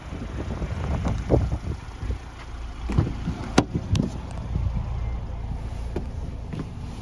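Rear passenger door of a Jeep Renegade being opened: a few knocks and clicks from the handle and latch, the sharpest about three and a half seconds in, over a steady low rumble of wind and handling noise on the microphone.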